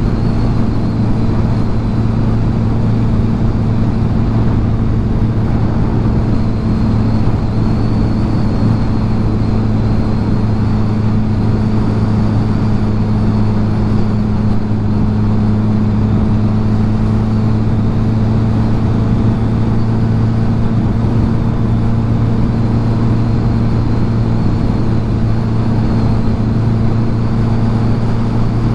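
Kawasaki Z900's inline-four engine holding a steady, unchanging note as the motorcycle cruises at constant speed.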